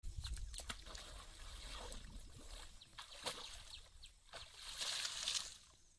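Asian elephant's trunk working in pond water: splashing and dripping with scattered clicks, then a louder hissing rush about five seconds in as the trunk sucks water up.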